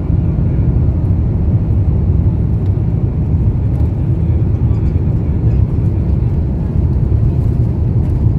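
Jet airliner taxiing, heard inside the cabin: a steady low rumble from the turbofan engines at low power as the plane rolls along the taxiway.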